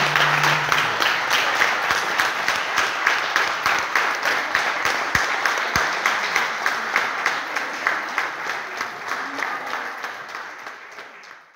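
A crowd applauding, the claps falling into a steady rhythm, while the last guitar note dies away about a second in. The applause fades out toward the end.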